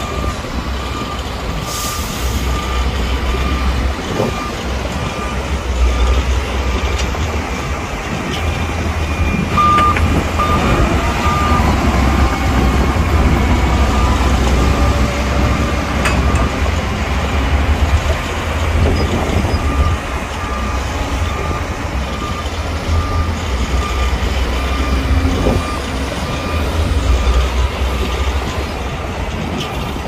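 Bulldozer's diesel engine running under load with a deep, uneven rumble, while a reversing alarm beeps over it in short repeated tones.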